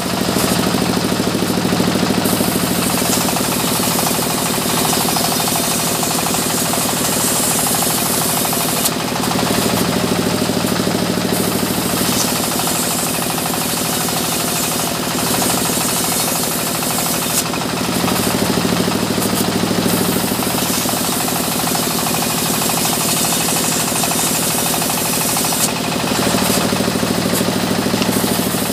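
Large stationary band saw in a sawmill running continuously while timber is fed through it. Every eight or nine seconds the sound turns harsher and louder for two or three seconds.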